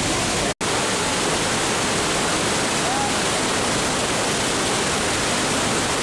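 Wide, low waterfall on the Manavgat River: a steady, loud rush of river water pouring over a rock ledge. The sound drops out for an instant about half a second in.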